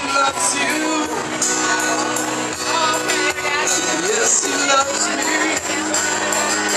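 Worship band music with a singer and percussion.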